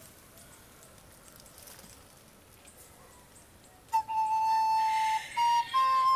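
A white plastic recorder starts playing about four seconds in: one long held note, a short slightly higher note, then a higher note held on.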